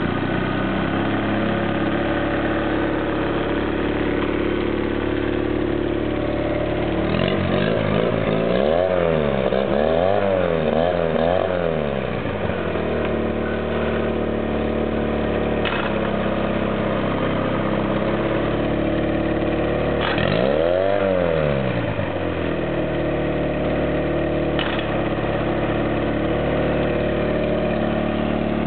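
2007 Mercury 8 hp outboard motor running and idling steadily. Its throttle is opened and closed several times in quick succession about seven seconds in, then revved up and back down once more around twenty seconds in.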